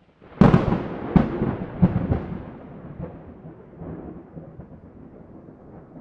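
Thunderclap from a thunderstorm recording: a sudden sharp crack about half a second in, a few more cracks over the next two seconds, then a long low rumble dying away.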